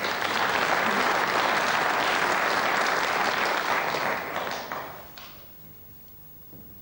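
Snooker audience applauding a pot. The clapping holds steady for about four seconds, then dies away.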